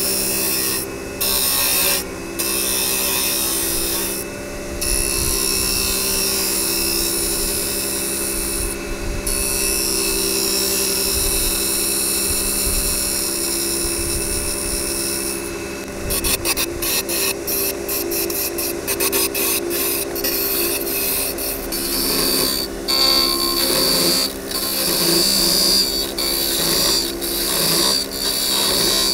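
JET wood lathe running with a steady motor hum while a roughing gouge cuts a spinning wooden handle blank, a continuous hiss of wood being shaved. The cut stops briefly a few times as the tool lifts off, and from about halfway through it turns choppy, with many short cuts in quick succession.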